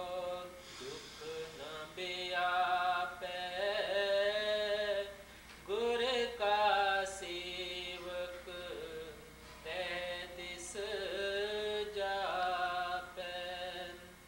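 A man chanting a devotional hymn in long, melodic sung phrases, holding and sliding between notes with brief pauses for breath about five and nine seconds in.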